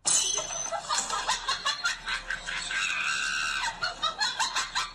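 A person laughing hard in quick shrieking bursts, with one longer high-pitched squeal a little past halfway.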